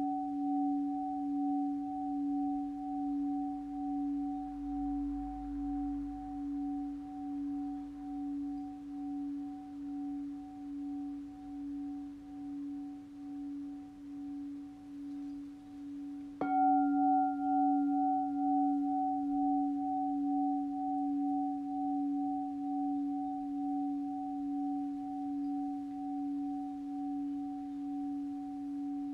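An 8-inch alchemy crystal singing bowl tuned to C# +45 rings with a steady low hum and a fainter higher overtone, its loudness pulsing slowly as it fades. About halfway through it is struck again: a sharp knock and a brief higher ring, then the hum swells louder and slowly fades once more.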